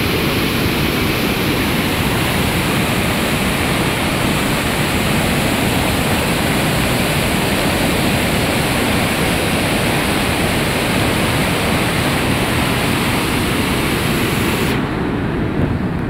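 Flood-swollen river rushing: a steady, loud roar with no let-up. The upper hiss falls away near the end.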